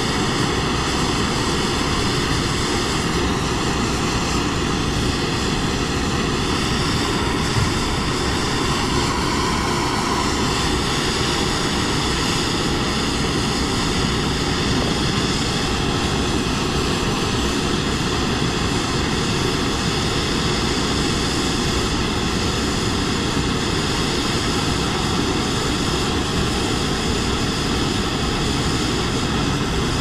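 Propane torch burning with a steady, unbroken rushing noise as it heats a soldered valve on copper heating pipe to melt the solder free.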